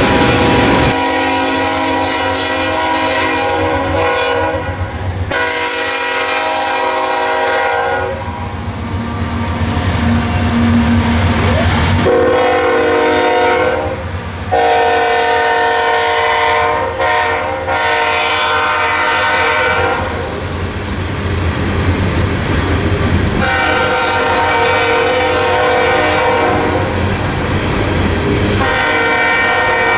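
Locomotive multi-chime air horn sounding a series of long blasts with short breaks between them, over the rumble of a passing train.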